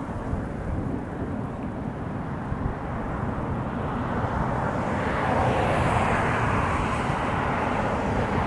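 Distant rumble of a long freight train rolling across a steel truss railway bridge, swelling louder about halfway through.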